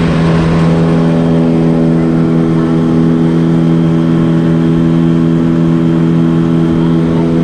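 Outboard motor of a small river boat running steadily at cruising speed, a constant hum holding one pitch.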